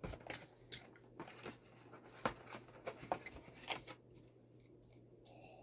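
Faint rustling and a scattered series of light clicks from box packaging being handled as parts are pulled out, dying away after about four seconds.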